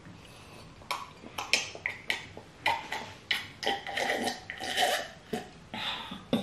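A woman drinking water noisily from a cup: a quick run of short gulps and slurps, about three a second, starting about a second in.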